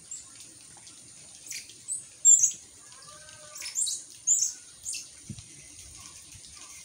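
Small birds chirping: a scattered run of short, high, sharp calls, about seven in all, the loudest about two seconds in.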